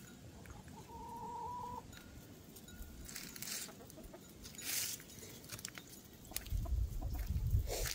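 Domestic hens clucking and calling, with one drawn-out call about a second in and short calls after it. Two brief rustles come in the middle, and a low rumbling noise takes over near the end.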